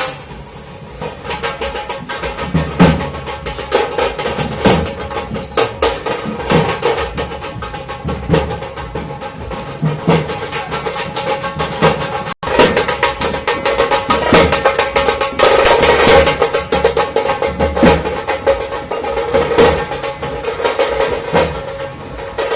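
Music with drums beating steadily under a held melody. It cuts out for an instant about halfway, then carries on.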